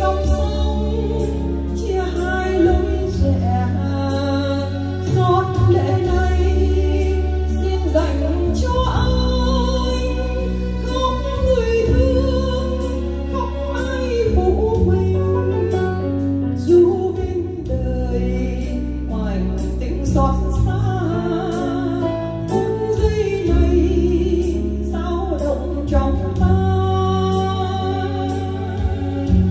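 A woman singing a Vietnamese song into a microphone, with electronic keyboard accompaniment carrying steady bass notes under the melody.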